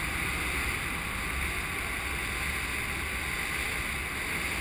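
Steady wind rushing over the microphone of a body-mounted action camera in flight, an even hiss over a low rumble.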